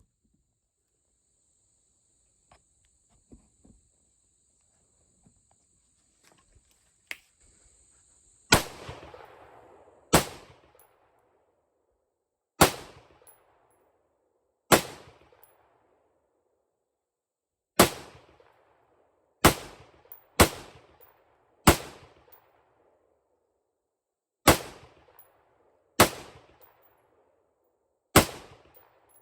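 Eleven single shots from an AR-15 rifle, fired one at a time at uneven gaps of one to three seconds, each cracking sharply and trailing a short echo. The shots begin about a third of the way in, and the rifle cycles every round without a stoppage.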